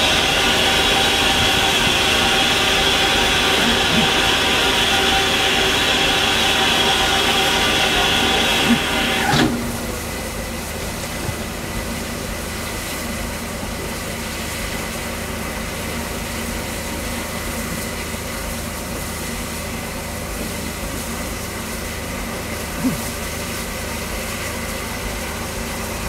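Standing LNER A4 Pacific steam locomotive Sir Nigel Gresley letting off a loud steam hiss that cuts off sharply about nine seconds in. A quieter steady hiss and hum of the locomotive at rest carry on after it, with one short knock near the end.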